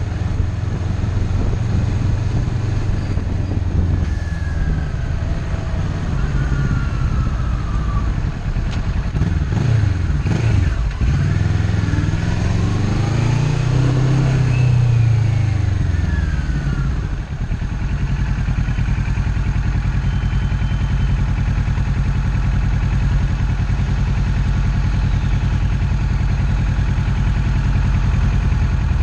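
Kawasaki Ninja 650's parallel-twin engine heard from the bike itself, rising and falling in pitch as it accelerates and slows in traffic. About halfway through it drops to a steady idle while the bike waits at a junction.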